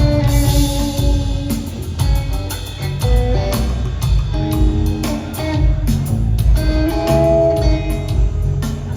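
Live rock trio of electric guitar, bass guitar and drum kit playing an instrumental jam, with held guitar notes over steady drum hits and bass, recorded through a phone's microphone.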